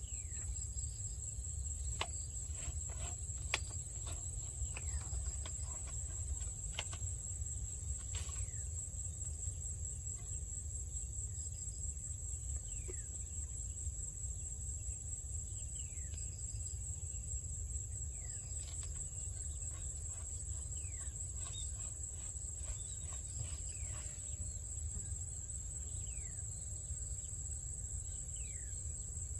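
Steady high, finely pulsed trill of insects such as crickets, over a low rumble, with scattered clicks and short falling chirps.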